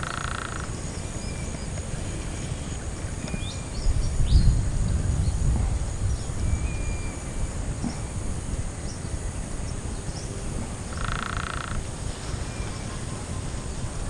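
Sunda pygmy woodpecker giving two short, rapid rattles, one at the very start and one about eleven seconds in, with faint chirps between them. An uneven low rumble underlies it, strongest a few seconds in.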